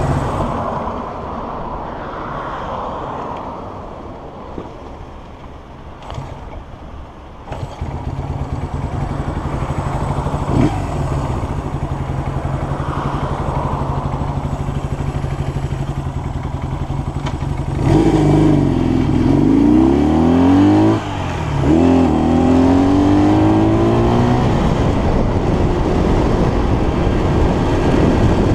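Honda CL175 parallel-twin engine: a quick throttle blip at the start, after which the engine falls off and runs quieter for several seconds, which fits the owner's remark that fast throttle revs sometimes make this bike cut out. It picks up sharply about seven and a half seconds in and then runs steadily. Later it accelerates away with rising revs, a gear change, and a second rise, then settles to steady cruising.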